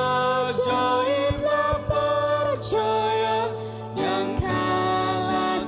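A woman and a man singing a Malay hymn together into microphones over a steady instrumental backing, holding long notes, with a short breath-break about four seconds in.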